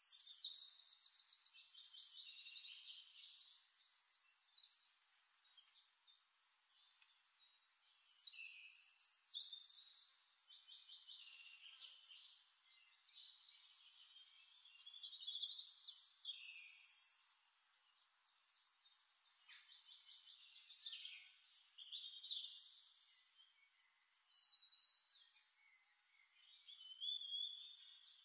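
Songbirds singing in a background nature recording: high, fast trilled phrases a couple of seconds long, repeating every several seconds.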